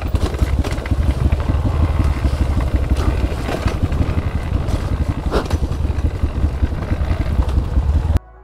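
Dirt bike engine running with a rapid, uneven beat. It cuts off suddenly near the end.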